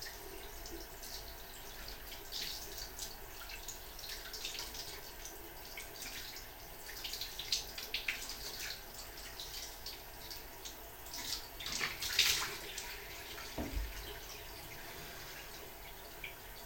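Faint water splashing in a bathroom sink, irregular small splashes and drips, with a louder run of splashes about twelve seconds in.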